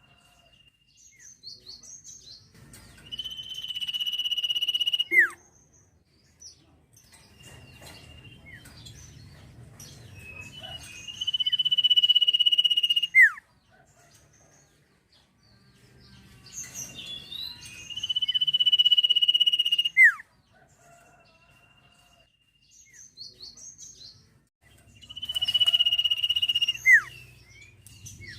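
A sirpu (sirtu) songbird sings the same phrase four times, about every seven seconds. Each phrase is a few short chirps, then a long steady high whistle held about two seconds, ending in a quick falling note.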